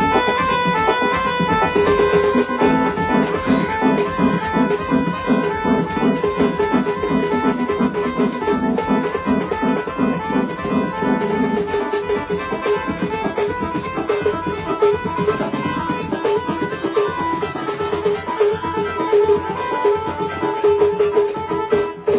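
Loud party music with a steady beat, played at a live event.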